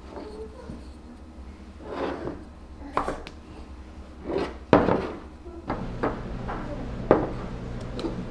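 Bamboo lids being handled and set onto glass storage jars: a handful of light wooden knocks and taps, the loudest a little before the middle. A low steady hum comes up about two-thirds of the way in.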